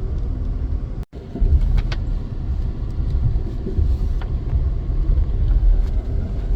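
Interior rumble of a moving Amtrak Auto Train passenger car: a steady low rumble with faint rattles and ticks. It cuts out for an instant about a second in.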